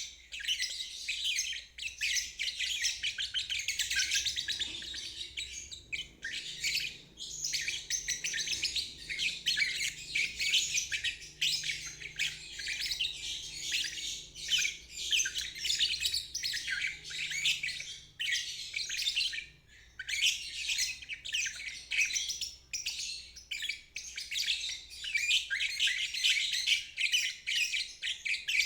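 Lovebird singing its rapid, chattering 'ngeriwik' song in long, nearly unbroken runs of high twittering, with brief pauses about six seconds in and near twenty seconds.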